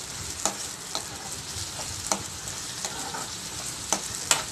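Chopped onion, tomato and ginger-garlic paste sizzling in hot oil in a non-stick kadai as they are stirred and sautéed, with a steady frying hiss. The spoon knocks sharply against the pan about five times.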